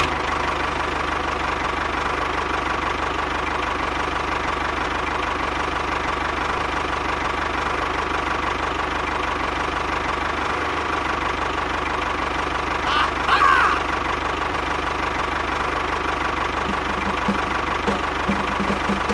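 Tractor engine running steadily with a knocking chug, laid over a toy tractor driving. A brief high squeak sounds about thirteen seconds in.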